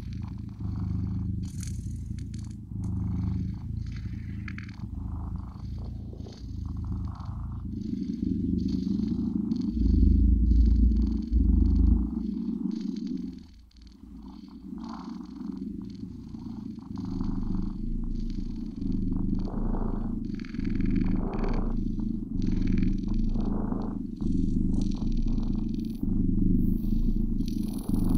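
Cat purring steadily in a slow in-and-out rhythm, about one cycle a second. A louder low rumble breaks in from about ten to twelve seconds in, and the purring drops away briefly just after before resuming.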